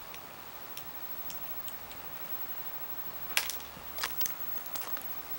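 Cat crunching at a pretzel: scattered sharp, crisp clicks, with a louder cluster about three and a half to four and a half seconds in.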